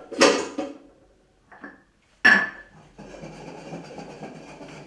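Dishes and cutlery clattering in a small kitchen: a few knocks and clinks, the loudest about two seconds in, followed by a steady rushing noise.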